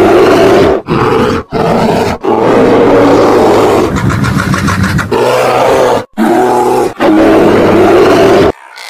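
Bear roars presented as the imagined voice of the extinct short-faced bear Arctodus: a run of loud roars, three short ones, then a long one, then two more, with brief breaks between them.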